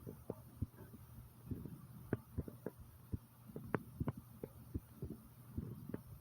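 A person's heartbeat pounding, picked up close against the chest: short dull thumps about two to three a second, some in close pairs, over a low steady hum.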